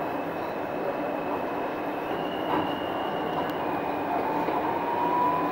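R160A subway train running on the track, heard from inside the lead car: a steady rumble and hiss with thin high tones above it. A faint tone rises slowly through the last second and a half.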